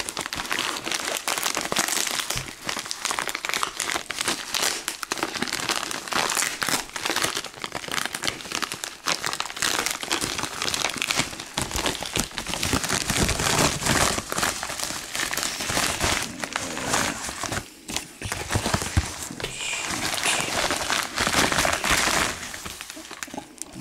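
A plastic shipping mailer crinkling and rustling as it is handled and opened, a continuous crackle with one short lull about three-quarters of the way through.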